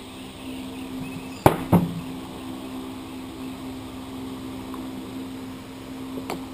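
Trigg A200 brake caliper set down on a metal workbench: two sharp knocks close together about a second and a half in, with a lighter click near the end. A steady low hum runs underneath.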